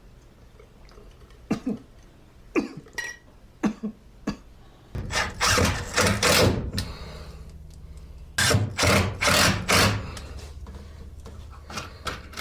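A few short knocks and clicks, then two runs of harsh coughing, several coughs in each.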